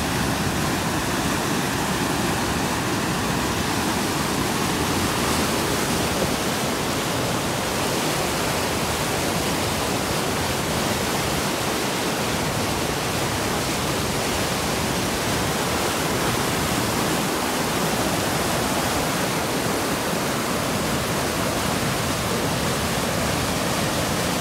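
Whitewater of a mountain river cascading over a granite ledge: a steady, unbroken rush of water.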